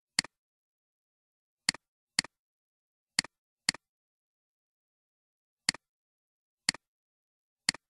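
Computer mouse button clicks: eight sharp clicks, unevenly spaced, each press followed at once by a quieter release click, with silence in between.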